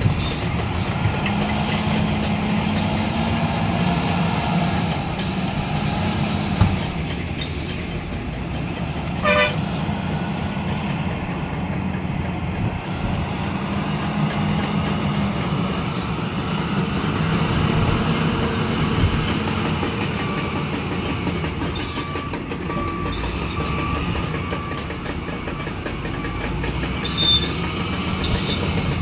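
Heavy diesel machinery engine running steadily under work, with scattered metallic clanks and knocks. A short pitched squeal or toot comes about nine seconds in, and a repeated beeping tone sounds for several seconds past the middle.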